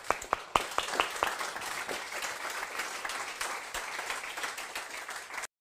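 Audience applauding at the close of a talk: a few scattered claps that build into steady applause about half a second in, then cut off suddenly near the end.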